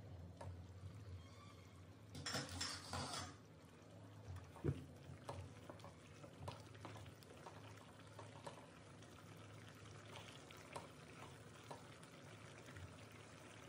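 A wooden spatula stirring thick curry gravy in a non-stick kadai, with soft scrapes and small clicks throughout. A brief louder rustling patch comes about two seconds in, and a single sharp knock a couple of seconds later.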